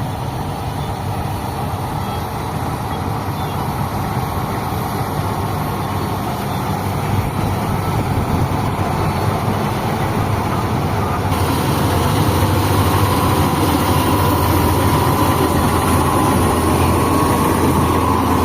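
Kubota MU5502 tractor's four-cylinder diesel engine running steadily with the harvester, growing louder about halfway through.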